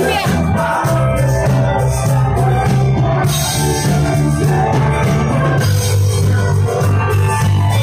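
Live band playing loud amplified rock music on electric guitar and drum kit, over a heavy bass line whose held notes change about a second in and again near the end.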